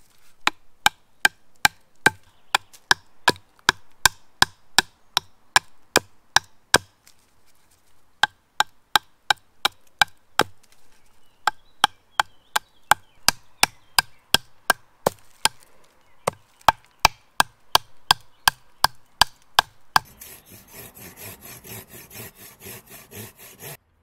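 Fixed-blade knife chopping into the end of a green wooden log to sharpen it to a point: sharp knocks about three a second, with a few short pauses. Near the end this gives way to a steady rasping of a folding hand saw cutting the wood.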